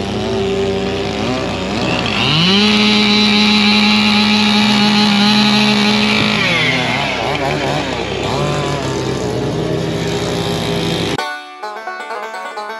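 Chainsaw engines running. About two seconds in, one saw revs up to full throttle and holds a steady high pitch for about four seconds, then drops back down. Near the end the saw sound cuts off abruptly into banjo music.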